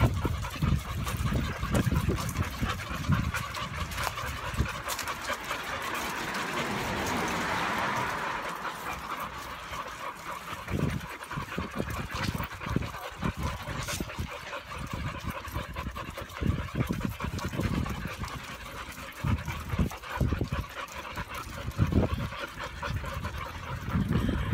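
A pack of leashed dogs on a walk, panting, with scattered small clicks and clinks throughout. Irregular low rumbling bumps come from the phone being handled or from wind on its microphone, and a broad hiss swells and fades about seven to eight seconds in.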